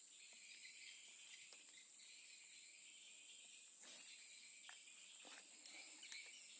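Quiet outdoor ambience: a faint, steady, high-pitched drone of insects, with a few faint ticks about four to six seconds in.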